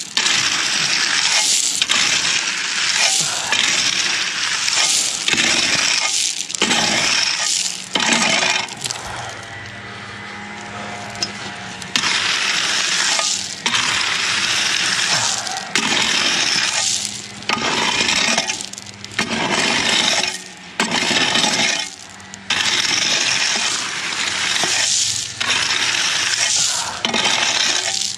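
Gravel raked with a steel rake in repeated strokes, the stones scraping and clinking against the metal and each other, with a pause of a few seconds near the middle.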